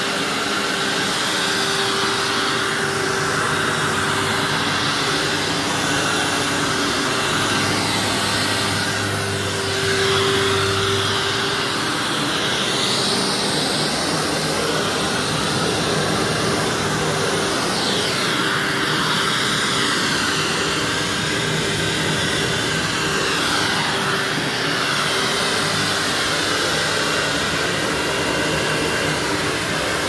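Upright vacuum cleaner running on carpet: a steady motor hum with a constant rush of air, shifting slightly in tone as it is pushed back and forth.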